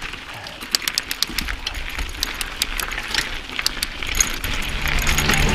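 Mountain bike rattling over rocky ground: irregular metallic clinks and jangles from the chain and bike parts over a low rumble of tyres and wind.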